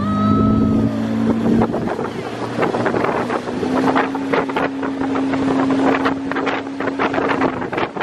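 Outboard motor of a river tour launch running under way, its pitch rising as it picks up speed at the start, then holding a steady hum. Wind gusts buffet the microphone throughout, over the rush of water along the hull.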